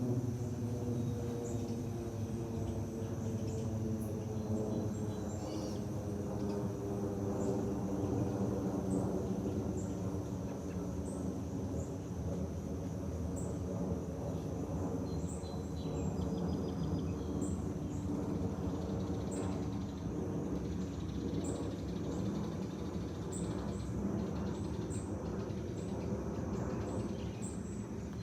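Airbus A340-313 passing overhead, its four CFM56 turbofans giving a steady low rumble with several engine tones that slowly fall in pitch. An insect's steady high-pitched drone and small repeated chirps run beneath it.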